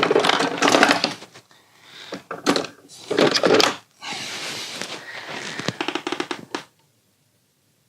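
Handling noise: clattering and rustling of objects being moved about in several bursts, which cuts off abruptly about two-thirds of the way in and leaves near silence.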